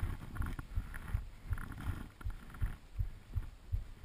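Low, muffled thumps about two or three times a second over faint wind hiss: handling and wind noise on a body-worn action camera's microphone.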